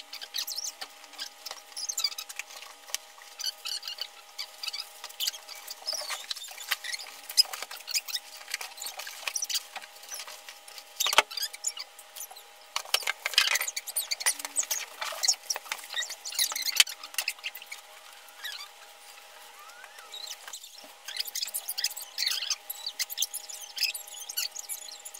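TV packaging being unpacked: plastic wrap, foam and cardboard rustling and crinkling, with scattered squeaks and clicks. A single sharp click comes about eleven seconds in, and the handling goes quieter for a few seconds later on.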